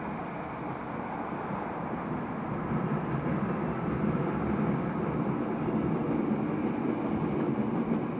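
Distant thunder rolling: a low rumble that swells about three seconds in and stays up, with no sharp crack.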